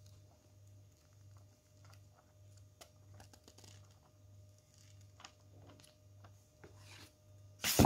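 Paper pages of a booklet being flipped by hand: soft scattered rustles and ticks, with one much louder burst of paper noise near the end.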